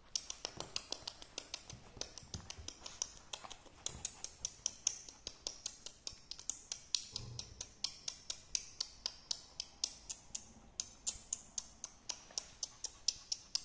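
Small long-haired terrier panting rapidly, a steady run of short quick puffs at about four to five a second.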